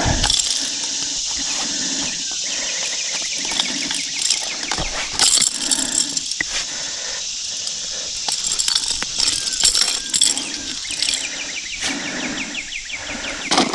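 Steady high-pitched insect chorus, with scattered clicks and rustles of pliers working the hooks of a big topwater plug out of a landed striped bass's mouth.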